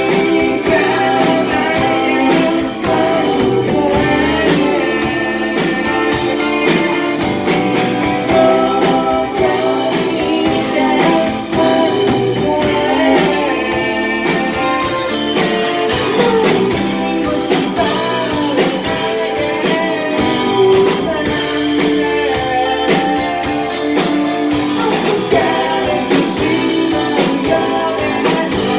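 Live band music: a man singing lead over strummed acoustic guitar and electric guitar.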